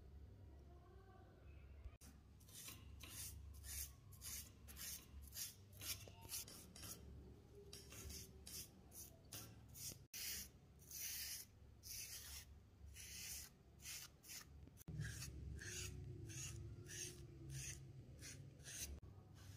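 Small paintbrush stroking black paint onto a ribbed pistol grip panel: a run of faint, quick brushing strokes, about two a second.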